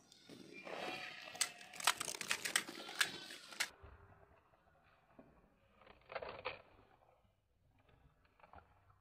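Faint crunching and crackling of crisp pani puri shells being bitten and broken open by hand, a run of small cracks over the first three and a half seconds, then one more short crunch about six seconds in.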